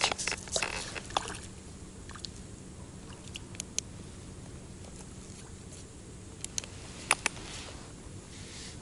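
Close handling noise: rustling and clicks in the first second or so, then faint hiss broken by a few isolated sharp clicks, the loudest a pair about seven seconds in.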